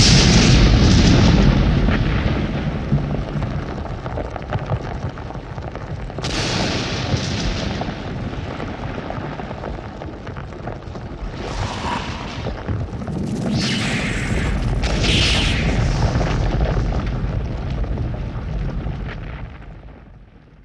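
Sci-fi film sound effect of an alien reactor starting up: a continuous deep rumble, loudest at the start, with bursts of hiss breaking in about six seconds in and several more in the second half, fading out near the end.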